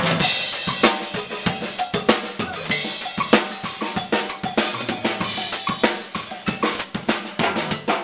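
A live drum kit and timbales played with sticks together in a busy percussion passage: rapid snare and rim hits and cymbals over the kick drum.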